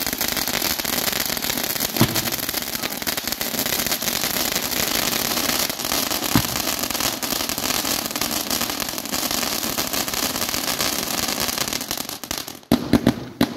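Firework fountains hissing and crackling steadily as they spray sparks, with a couple of single louder pops. Near the end the hiss cuts off and a fireworks battery starts firing shots in quick succession, several a second.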